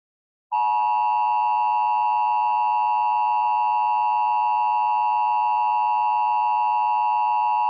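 Emergency Alert System attention signal: the steady two-tone alert, 853 Hz and 960 Hz sounded together, starting about half a second in and held without change. It announces that an emergency alert message follows.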